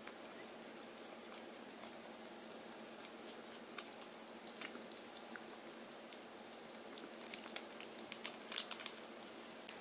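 Small wet clicks and smacks of a baby Netherlands Big Line ferret licking and chewing at a stick-pouch treat, over a faint steady hum. The clicks come scattered at first and grow busier and louder near the end.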